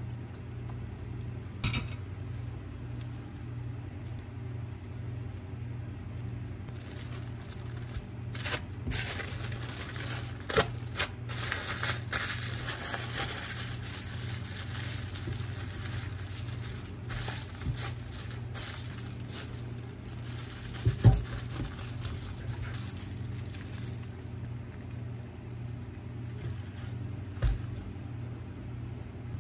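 Plastic wrap crinkling and rustling as a sandwich is wrapped tightly by hand, with scattered small clicks and one sharp knock about two-thirds of the way through, over a steady low hum.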